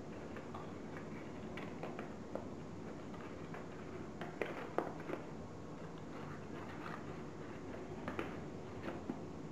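Folded paper units of a modular origami ball crinkling and rustling as fingers tuck them together, in scattered small crackles and clicks that come most thickly around the middle and again near the end, over a steady low hiss.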